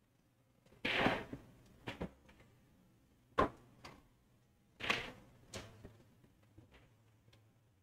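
Pool balls clacking against each other as they are gathered and packed into a template rack on the table: a series of sharp, irregular clacks, the loudest about a second in.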